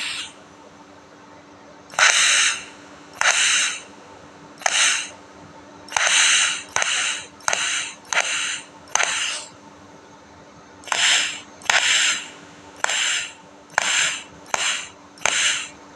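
Welding arc struck in a run of short bursts, like a string of tack welds. Each burst is a crackling hiss of under a second, about sixteen of them with short gaps, over a steady low hum.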